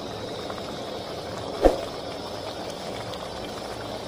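A steady hiss, with one short dull knock about one and a half seconds in.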